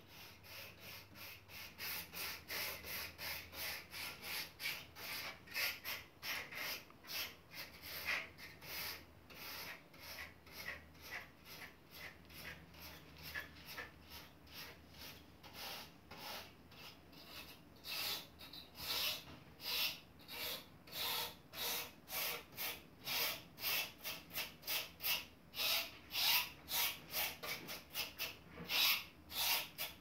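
A brush scrubbing the fins of an air conditioner indoor unit's evaporator coil in quick back-and-forth strokes, a short rasping scratch with each stroke. The strokes become louder and harder in the second half.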